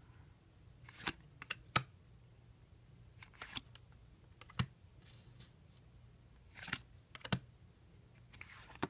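Trading cards being handled and laid down: scattered sharp clicks with a few short brushing slides, a second or more apart.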